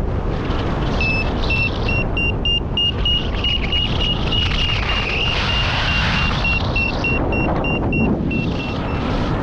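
Paraglider variometer beeping: a string of short high beeps that come faster and climb slightly in pitch in the middle, then slow and drop near the end, the vario signalling lift. Under it, steady wind rush on the microphone.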